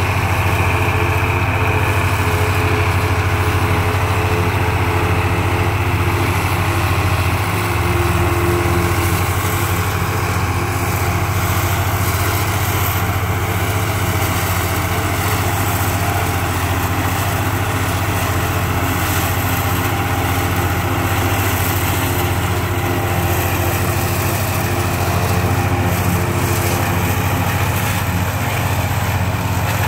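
Old John Deere tractor engines running steadily under load while a Papec one-row forage chopper cuts standing corn and blows chopped silage into a wagon alongside.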